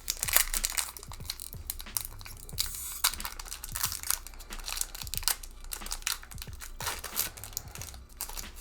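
Foil booster pack wrapper crinkling and being torn open, a run of short crackles with a longer tearing rasp about three seconds in.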